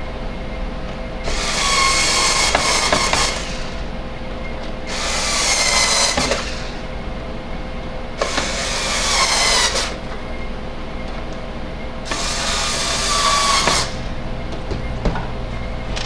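Cordless electric screwdriver driving screws back into the plastic base of a speaker dock: four separate runs of motor whine, each about two seconds long.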